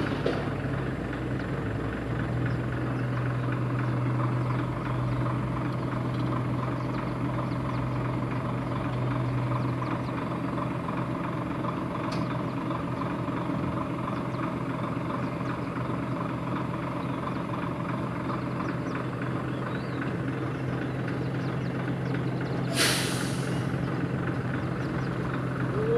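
Excavator's diesel engine running steadily with a constant low hum, and a short hiss near the end.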